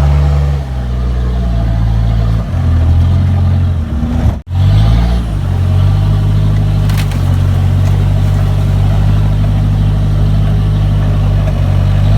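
Kia Sportage 4x4's engine working under load off-road, its pitch shifting as the driver changes revs. Its pitch drops about two and a half seconds in, and after a sudden brief gap a little over four seconds in the revs rise and then hold steady.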